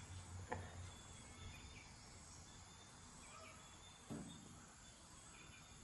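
Near silence with faint outdoor ambience and a few faint high chirps. A light click comes about half a second in and a soft knock about four seconds in, from hands handling the camera and its lens adapter.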